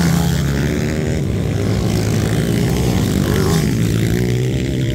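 Dirt bike engines running hard as motocross bikes race past, loudest at the start as the nearest bike goes by and then moving away.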